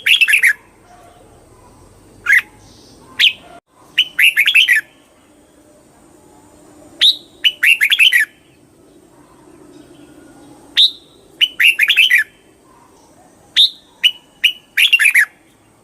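Red-whiskered bulbul singing: short, quick phrases of chirpy notes, each lasting under a second, repeated about every one to three seconds with brief pauses between.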